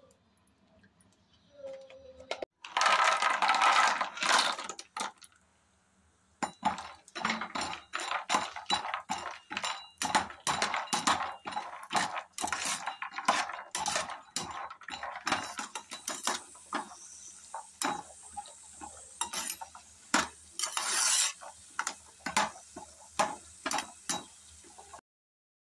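Cashews frying in ghee in a nonstick pan, stirred with a spatula: a dense rattle of nuts against the pan about three seconds in, then repeated clicks and scrapes of spatula and nuts on the pan, with a faint sizzle in the later part.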